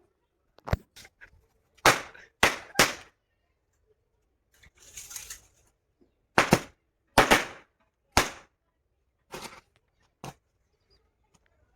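Firework rockets from a packet burning in a fire, going off one at a time: about nine sharp bangs at uneven intervals, with a brief hissing whoosh a little before the middle.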